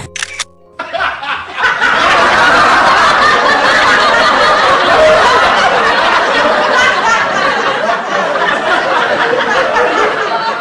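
Several people laughing together. The laughter builds up after a brief lull near the start and then carries on loudly and unbroken.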